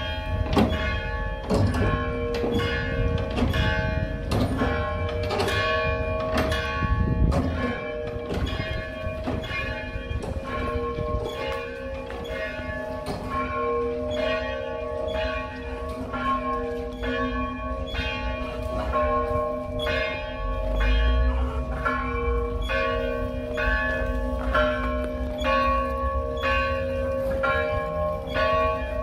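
Church bells ringing in a fast, continuous peal, struck about twice a second, their several tones hanging on and overlapping between strikes.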